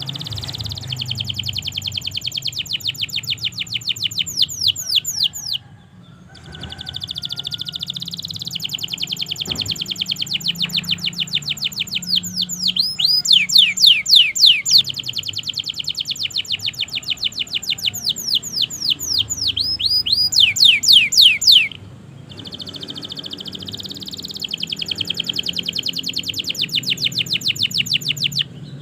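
Domestic canary singing long, continuous rolls of rapidly repeated notes, many a second, broken by two short pauses. The loudest phrases are fast downward-sweeping notes, near the middle and again about two-thirds of the way through.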